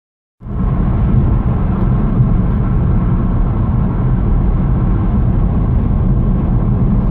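Steady low rumble of a car's tyres and engine heard from inside the cabin while driving at motorway speed, starting abruptly about half a second in.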